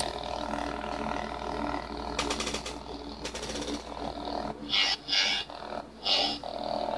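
Homemade lightsaber's sound board playing a steady electric hum, with several swing sounds set off by its motion sensor in the second half.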